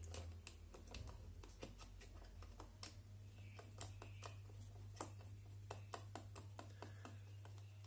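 Faint, irregular small clicks and taps of plastic and metal RC car suspension parts being handled and fitted by hand, over a low steady hum.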